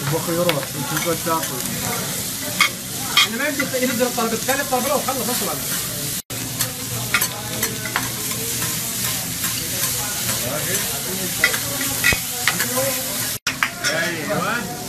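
Beef, salmon and shrimp sizzling on a teppanyaki steel hot plate, a steady frying hiss with repeated sharp clicks and scrapes from a metal spatula on the steel. The sound cuts out for an instant twice.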